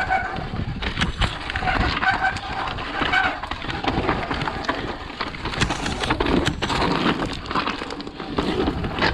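Mountain bike ridden fast down a rough dirt trail: rushing wind on the microphone and tyre noise, broken by frequent sharp knocks and rattles from the bike over bumps.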